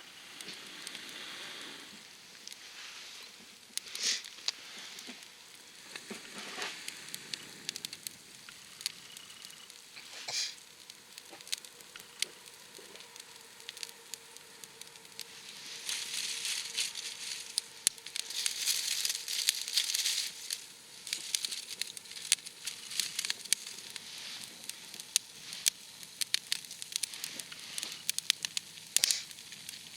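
Wood campfire crackling with frequent sharp pops, and a stretch of louder hissing about halfway through.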